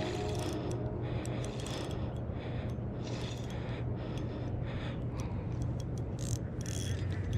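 Shimano Stradic Ci4 1000 spinning reel clicking and whirring in irregular runs of ticks as a hooked trout is reeled in.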